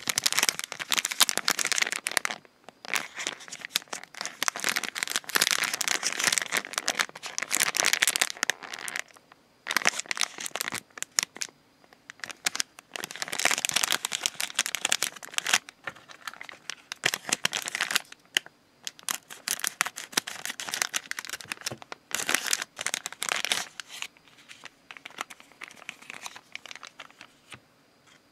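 Plastic foil wrapper of a trading-card gummy pack crinkling as it is handled and opened, in repeated bursts of a second or more with short pauses between.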